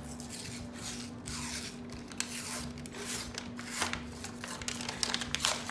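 Paper label being peeled and torn off a cardboard crescent-roll dough can, an uneven run of ripping and rustling that grows sharper and more crackly near the end.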